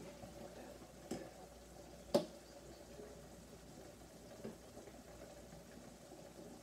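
Faint cooking sounds: a pot of noodles boiling on the stove, a low steady bubbling, with three light knocks, the sharpest about two seconds in.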